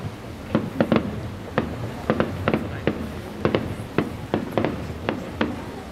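Fireworks display: aerial shells bursting in an irregular series of sharp bangs, about two or three a second, over a low rumble.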